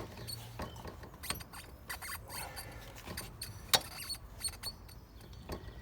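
Scattered light metallic clicks and clinks of a Honda Bali scooter's front wheel being worked into place, its brake disc fiddled in between the brake pads, with one sharper knock about three and a half seconds in.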